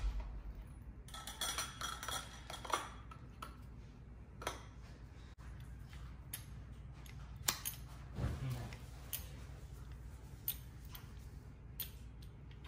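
Scattered light metallic clinks and taps as a meat injector is handled: dipped into a bowl of melted bacon grease and pushed into pork ribs lying on a wire rack.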